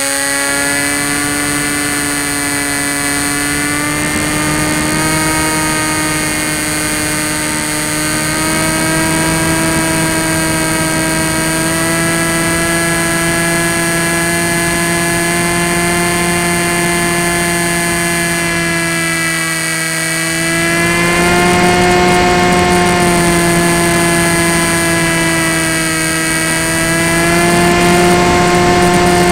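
Electric pusher motor and propeller of a Tek Sumo foam flying wing, heard from its onboard camera in flight: a steady droning whine that drifts in pitch with the throttle. It rises in pitch and gets louder about two-thirds of the way through and again near the end.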